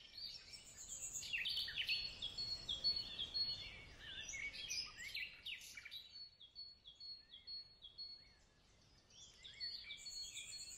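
Birds chirping and twittering in many short, quick calls, faint, with a gap of near silence about eight seconds in before the chirping resumes.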